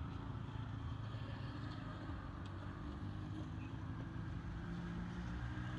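A motor engine running steadily, heard as a low hum.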